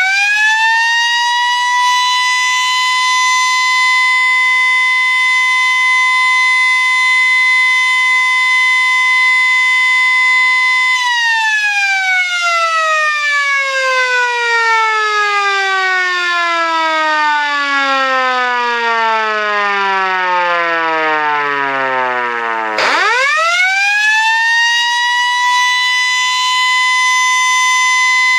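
Sterling F2 electromechanical siren sounding a German siren signal. It holds a steady, loud high tone for about eleven seconds, then is cut off and winds down in a long falling glide for about twelve seconds. Near the end it winds back up quickly to the same steady tone.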